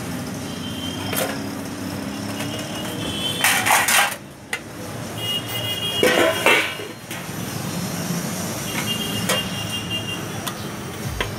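Stainless-steel plates clinking and ringing against the counter over steady background noise, with two louder scraping bursts about three and a half and six seconds in.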